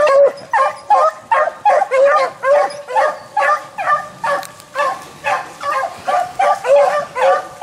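Beagles baying on a rabbit's trail: a run of loud, overlapping hound calls, two or three a second, from more than one dog.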